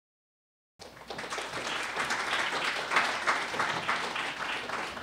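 Audience applauding. The clapping starts abruptly a little under a second in and begins to die away near the end.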